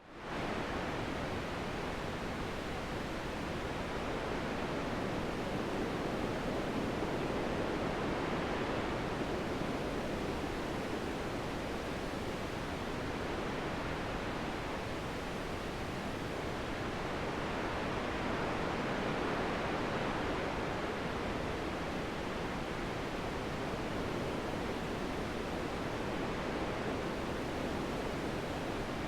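Steady wind noise, slowly swelling and easing every several seconds.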